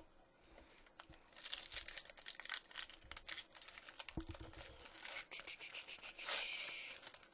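Foil wrapper of a Topps Chrome football card pack crinkling and tearing as it is ripped open by hand, a quick run of crackles with one longer, louder rip about six seconds in.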